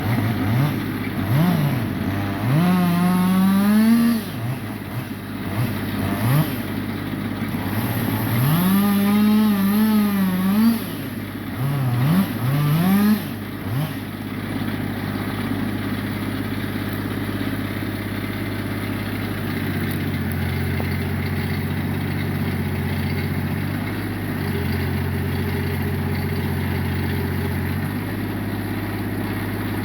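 An engine revving up and down several times, then running steadily at a lower speed for the rest of the time.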